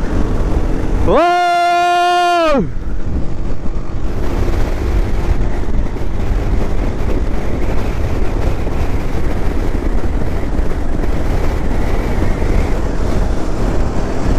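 A motorcycle horn sounds once, about a second in, holding one steady note for about a second and a half. Under it the bike rides on with a continuous low engine and road rumble and wind buffeting the helmet-mounted microphone.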